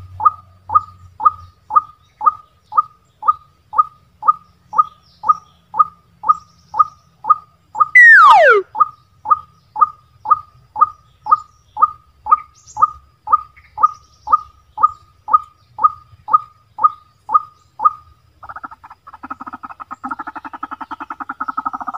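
White-breasted waterhen calls: a short note repeated evenly about twice a second, crossed about 8 seconds in by one loud falling whistle, then from about 18 seconds a fast croaking rattle.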